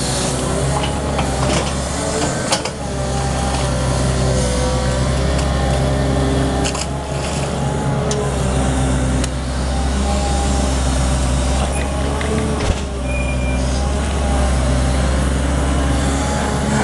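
Caterpillar 320D long-reach excavator running, a steady diesel drone with tones that shift in pitch as it works. A sharp click sounds about two and a half seconds in, and another about twelve and a half seconds in.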